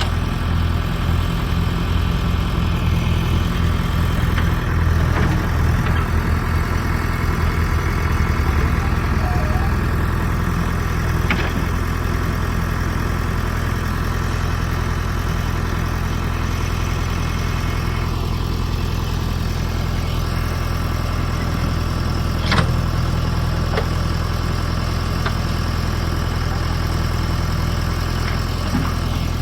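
Bulldozer's diesel engine running steadily with a deep note while grading soil. There are a few short knocks, the sharpest about two thirds of the way through.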